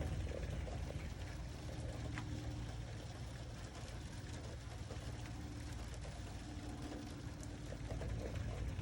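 Rain falling and trickling, with scattered faint drips, over a steady low hum.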